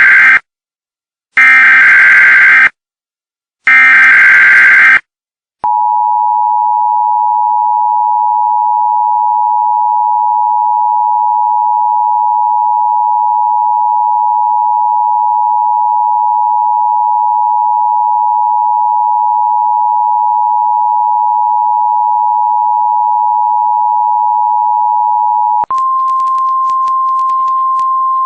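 Emergency Alert System tones: three loud, roughly one-second bursts of SAME header data tones in the first five seconds, then the steady two-tone EAS attention signal held for about twenty seconds. Near the end it switches suddenly to a single, slightly higher steady tone, the NOAA Weather Radio warning alarm tone, with faint clicks over it.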